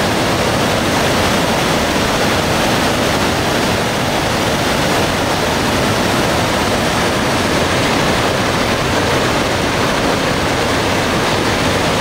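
Whitewater river rapids rushing steadily.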